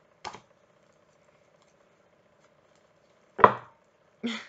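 Tarot cards being shuffled by hand: a few short slaps and taps of the deck, the loudest about three and a half seconds in, with another just before the end.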